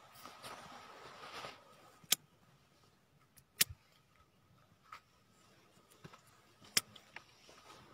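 Shuffling footsteps and rustling on dry, stony soil scattered with leaves, followed by a few sharp isolated clicks spaced a second or more apart.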